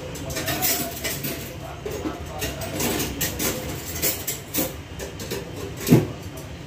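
Kitchen handling noises: a run of light knocks and clicks as things are handled in and around a countertop appliance, over a steady low background hum. One loud thump comes about six seconds in.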